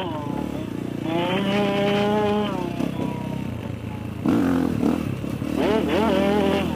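Dirt bike engine running under the rider on a dirt trail, revving and backing off: it holds a steady pitch, eases off about two and a half seconds in, then picks up again with rising revs near the end.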